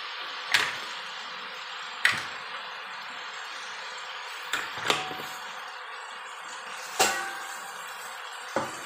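Green mussels in their shells dropped from a metal plate into a hot wok, landing with a sharp clink every second or two, about six in all, over a steady frying sizzle.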